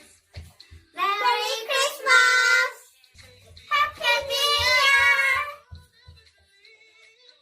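Children singing two loud phrases, with held high notes, over a faint low beat.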